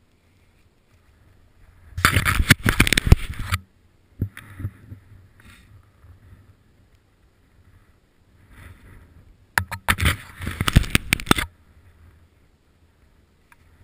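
Gloved hands handling the action camera and its mount: two bursts of close scraping and crackling, about two seconds in and again near ten seconds, each lasting a second and a half to two seconds, with faint rustling between.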